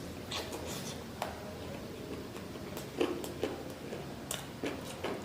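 A person eating: wet chewing and mouth smacks with scattered short clicks, irregular and a second or so apart.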